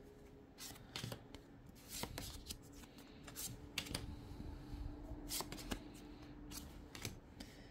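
Magic: The Gathering token cards being flipped through by hand one at a time, each card slid off the stack: soft, irregular card slides and light taps.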